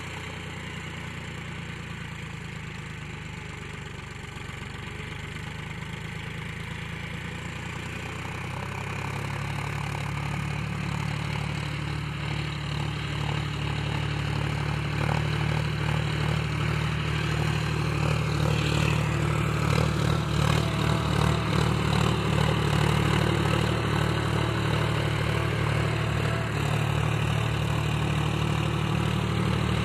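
John Deere 5050D 4WD tractor's three-cylinder diesel engine running steadily under load as it pulls a laser land leveller through dry soil. It grows louder as the tractor comes closer, over roughly the first twenty seconds.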